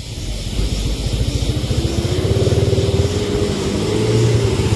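Dump truck engine revving hard under load as the truck tries to drive out of deep mud, rising in pitch and loudness over the first two seconds and then held at high revs.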